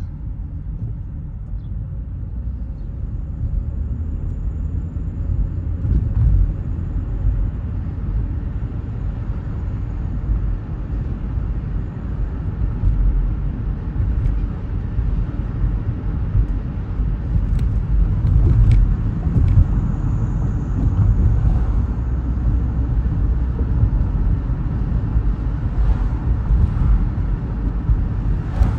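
Car driving along a road: steady low rumble of tyre, road and engine noise.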